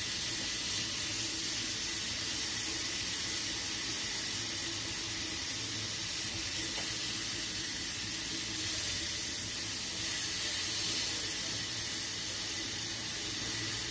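Beef satay skewers sizzling in a grill pan over a gas burner: a steady hiss that does not let up.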